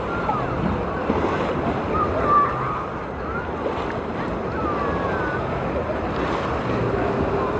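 Wave pool water churning and splashing in a steady wash of noise, with scattered distant shouts and cries from swimmers in the waves.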